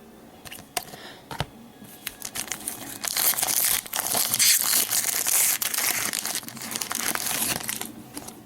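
A few light clicks, then the wrapper of a basketball card pack crinkling and tearing open for about five seconds, easing off near the end.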